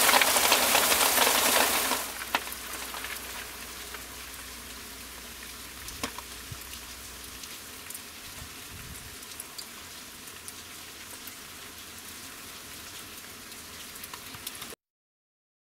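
Heavy rain hissing steadily for about two seconds, then dropping suddenly to lighter rain with scattered drip ticks, which cuts off near the end.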